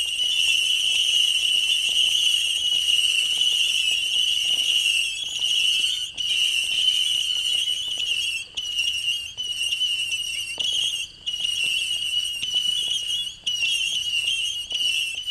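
800-shot Ultimate Screamer whistle cake firing a rapid stream of whistling shots. They merge into one steady, high-pitched whistle that is broken by a few short gaps in the second half.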